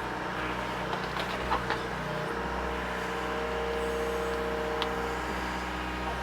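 Mini excavator's diesel engine running steadily under load as it strains to pull a tree stump loose, with a higher steady whine for a few seconds midway and a few short knocks.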